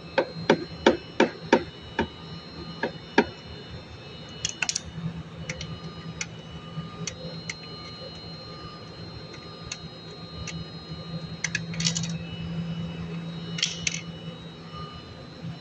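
Hand tools tapping and clicking, about three sharp taps a second for the first few seconds, then scattered clicks and a few short scraping rattles, over a steady low hum.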